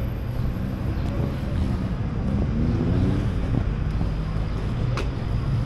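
Street traffic: vehicle engines running, one rising in pitch about two and a half seconds in, with wind on the microphone and a sharp click near the end.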